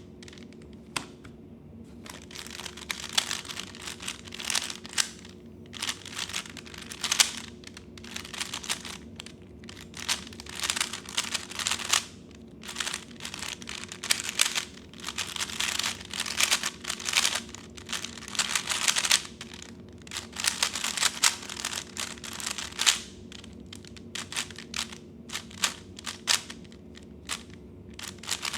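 3x3 Rubik's cube being turned at speed during a timed solve: rapid runs of plastic clicking and clacking lasting several seconds each, broken by short pauses.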